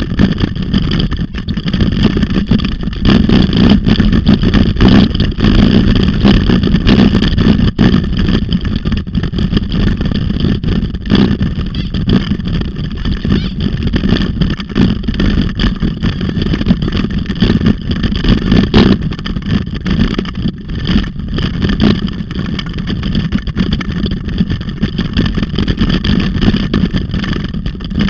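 Loud, continuous rumble and rattle of wheels rolling fast over a rough forest dirt trail, picked up through a handlebar-mounted camera shaking with every bump.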